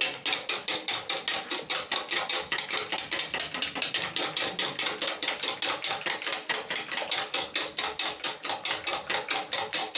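Metal wire whisk beating runny egg, butter and sugar batter in a bowl, its wires clicking against the bowl about five times a second in a fast, steady rhythm.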